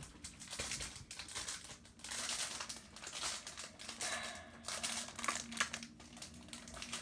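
A holo Pokémon trading card being ripped up and crumpled by hand: a papery crinkling and tearing that comes in several separate spells.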